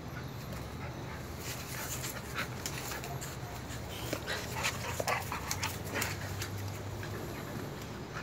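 Two pit bulls play-wrestling: quick panting and short, irregular scuffles and mouthing noises from the dogs, over a steady low hum.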